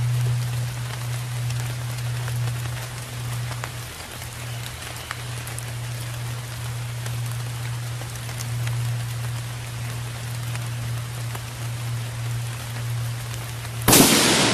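Steady rain falling, with a low hum underneath. About fourteen seconds in, a single 6mm Creedmoor bolt-action rifle shot goes off, the loudest sound, dying away over about half a second: a near-maximum handload being tested for over-pressure in wet conditions.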